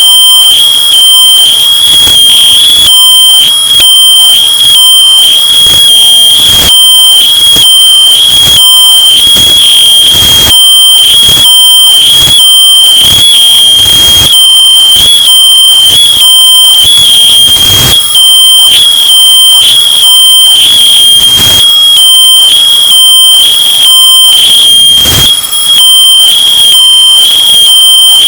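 Smoke alarm sounding one steady high-pitched tone, bass boosted and overdriven to near full loudness, so it is harshly clipped, with crackling distortion throughout.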